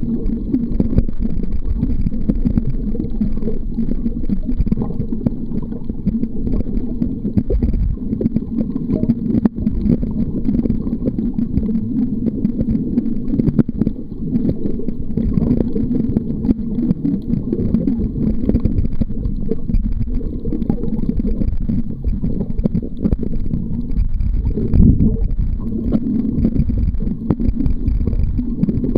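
Muffled, steady underwater rumble of moving water against a waterproof camcorder's sealed microphone held below the surface, with a brief louder surge near the end.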